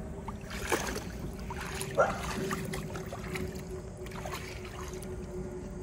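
Shallow water sloshing and splashing in a plastic kiddie pool as a dog wades and paws at the bottom, in irregular bursts.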